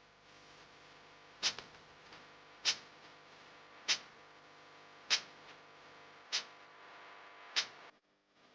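Sharp clicks at an even pace, about one every 1.2 seconds, six in all, over a faint steady hum. The sound cuts out abruptly near the end.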